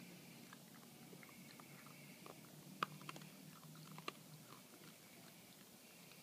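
A raccoon eating and handling food at a steel water bowl: a scatter of faint crunches and clicks, the loudest two about three and four seconds in, over a low steady hum.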